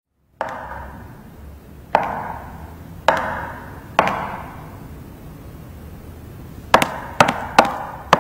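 A series of sharp struck hits, each ringing out briefly: four spaced about a second apart, then after a pause a quicker run of hits, about two or three a second, near the end.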